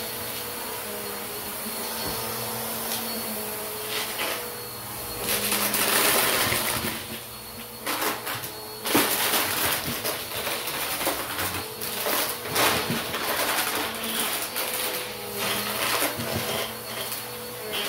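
Bissell upright vacuum running on carpet. It becomes louder and noisier partway through. From about eight seconds in it sucks up plastic bottle caps and fake coins with rapid irregular clattering and crunching.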